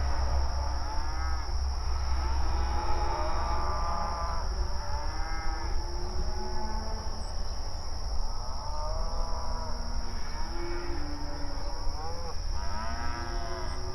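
A herd of cattle mooing mournfully, many long overlapping calls rising and falling in pitch, over a steady high-pitched drone.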